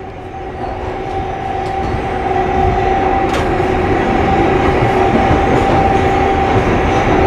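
New York City 4-train subway car running on the rails, heard from inside the car: a rumbling clatter that grows louder over the first couple of seconds and then holds steady, with a steady hum running under it.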